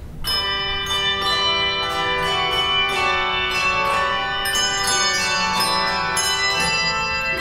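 Handbell choir starting to play: many bells struck together about a third of a second in, then repeated strikes of several pitches at once, each note ringing on under the next.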